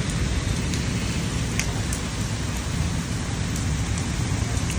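Steady rain falling, with a low rumble underneath and a few single drops ticking close by.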